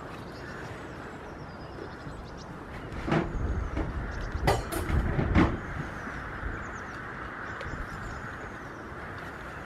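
A few sharp knocks and some clatter over a deep rumble for a couple of seconds midway, against a steady outdoor background with faint bird chirps.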